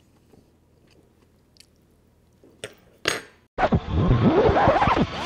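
Faint eating sounds, a fork and chewing, with a couple of sharp clicks, then, about three and a half seconds in, a loud VHS tape-rewind sound effect: a dense whirring noise with fast swooping, warbling pitches.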